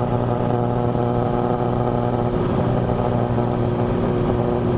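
Cessna 182 Skylane's piston engine and propeller droning steadily at climb power, heard from inside the cabin.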